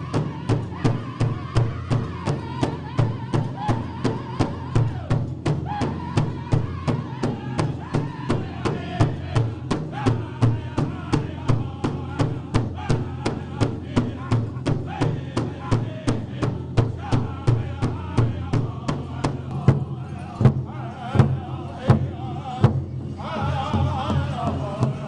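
Powwow drum group: several men strike one large hide drum together in a steady, fast beat of about three strokes a second while singing in high voices. Near the end the beat breaks into a few harder, spaced strokes, then a different drum-and-singing group comes in.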